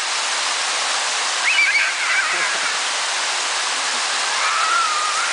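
Mall water fountain's jets falling into its pool: a steady rushing splash of water. A high-pitched voice briefly calls out about one and a half seconds in, and again near the end.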